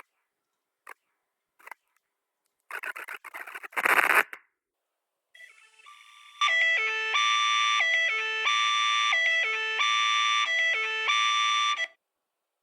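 Electronic emergency-alert tone: a short falling run of notes repeated about four times, cutting off suddenly near the end. It is preceded by a brief burst of static-like noise.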